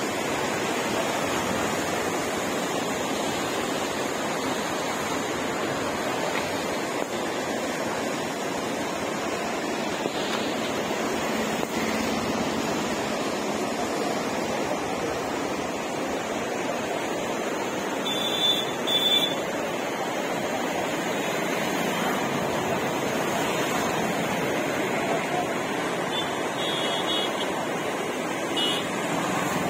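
Floodwater of the swollen Godavari river rushing past in a steady, even wash of noise. Brief high beeps cut in about two-thirds of the way through and faintly again near the end.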